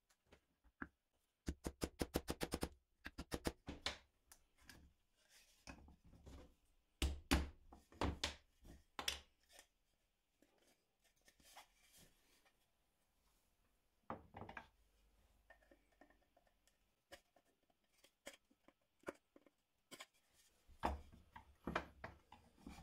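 Woodworking bench work: irregular knocks and clicks of wood pieces and hardware being handled. About a second and a half in there is a quick, even run of clicks, roughly ten a second, lasting just over a second.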